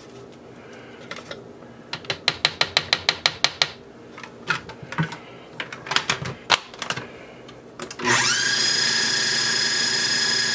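Plastic clicks and knocks as a food processor's bowl and lid are handled, including a quick even run of about a dozen clicks. About eight seconds in, the food processor's motor starts abruptly and runs steadily with a high whine, blending a thick guacamole.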